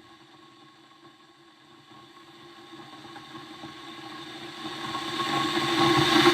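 A steady mechanical drone with several held tones, growing steadily louder over about six seconds and then cutting off abruptly.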